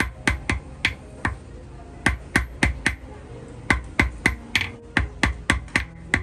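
Hammer striking gold wire on a small steel anvil block: sharp metallic taps, about three to four a second, in runs of several blows with short pauses between.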